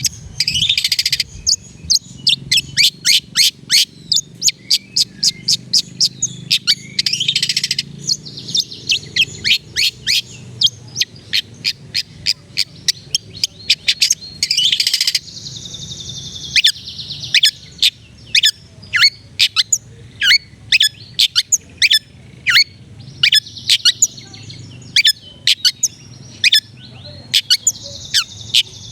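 Long-tailed shrike singing: rapid strings of sharp, high, downward-sweeping "toet" notes, broken several times by harsh scratchy chattering stretches of about a second.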